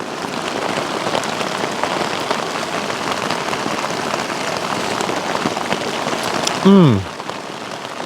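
Heavy rain pouring steadily onto a tarp shelter. Near the end comes one short 'mmm' from a person, falling in pitch.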